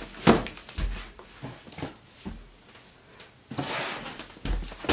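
Cardboard shipping box being handled on a table: a sharp knock about a quarter second in, a few lighter knocks and taps, a brief rustling scrape about three and a half seconds in, and more thumps near the end.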